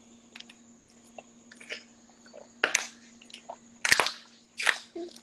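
A man gulping ice-cold water from a plastic bottle: a few separate loud swallows, the loudest about four seconds in.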